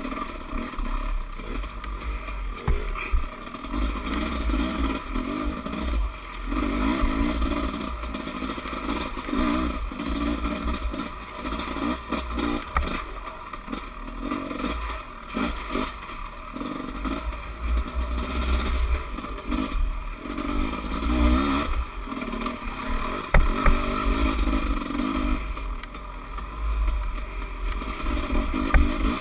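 Dirt bike engine revving up and falling back again and again as it is ridden over rough forest trail, with rattles and sharp knocks from the bike bouncing over roots and ruts.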